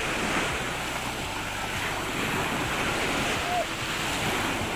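Ocean surf breaking and washing around the shallows, with wind buffeting the microphone.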